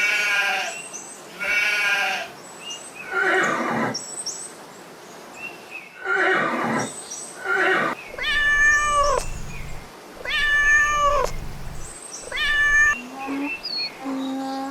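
Farm animals calling one after another, a call every second or two: bleats first, then louder calls that fall in pitch.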